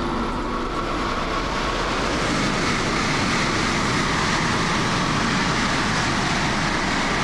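Shinkansen bullet train going by: a steady rushing noise that grows a little louder about two seconds in.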